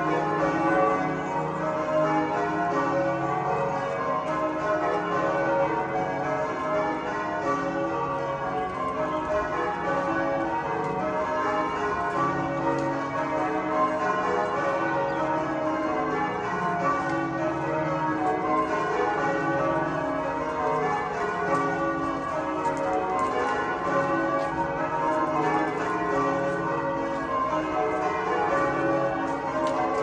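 The bells of Canterbury Cathedral, rung full-circle in English change ringing: a continuous peal of many overlapping bell strokes at different pitches, with an even, unbroken rhythm.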